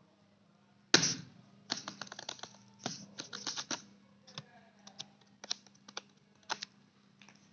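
A kitten making a quick, irregular run of clicks and taps on a hard surface, like keys being typed. It starts with a sharp knock about a second in and thins out near the end.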